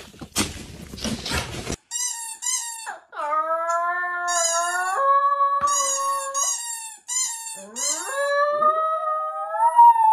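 A brief burst of rustling noise, then two small dogs howling together, their drawn-out howls overlapping at different pitches and rising and falling.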